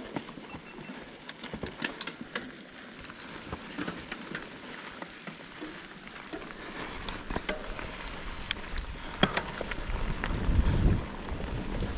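Mountain bike descending a rough dirt trail: the bike rattles and clacks over bumps with many sharp knocks, over tyre noise on the dirt. Wind buffets the microphone in the second half, loudest near the end.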